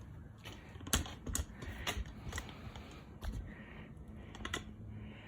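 Irregular light clicks and taps from hands working on the snowblower's parts, the sharpest about a second in, over a faint steady low hum.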